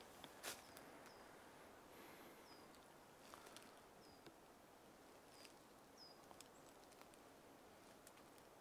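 Quiet forest ambience: a small bird gives short, high call notes every second or so, with a few faint snaps of twigs or steps in the undergrowth, the clearest about half a second in.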